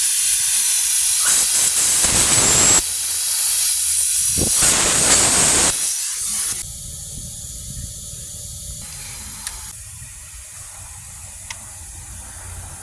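Compressed air hissing loudly in several long blasts, then cutting off about six seconds in, as air is put through the Actros transmission's power shifter after its O-rings were replaced.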